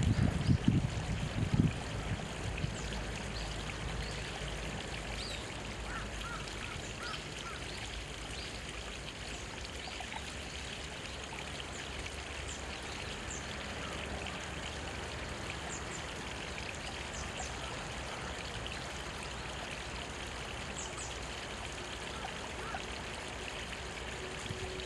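Small mountain stream trickling steadily between rocks, with faint high bird chirps now and then. A few low thumps sound in the first two seconds.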